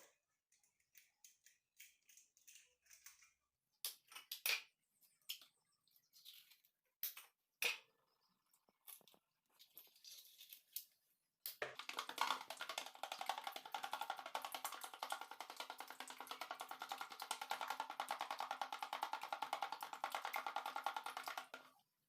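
Eggs being cracked into a bowl, with scattered knocks and taps of shell and utensils. About halfway through comes a fast, even clicking with a ringing tone, as of the eggs being beaten in the bowl, which stops suddenly near the end.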